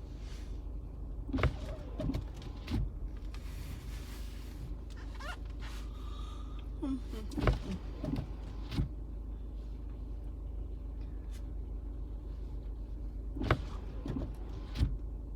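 Car cabin noise while driving: a steady low rumble, broken by several sharp clicks and knocks at uneven intervals.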